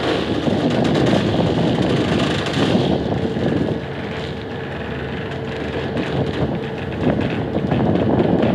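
Wind rushing over the microphone with a steady low rumble beneath it, the level swelling and easing unevenly. A faint held hum comes in about three seconds in and stops near the end.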